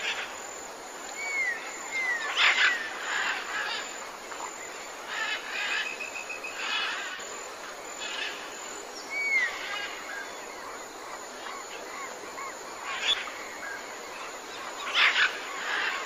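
Jungle-style ambience of scattered bird chirps and calls over a steady hiss, with a few brief louder cries.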